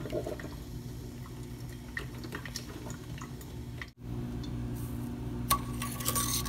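Faint drips and small ticks as vanilla extract is poured into warm milk in a stainless steel pot, over a steady low hum. About two thirds of the way in, a metal spoon starts stirring and scraping in the pot, with a light ringing of metal on metal.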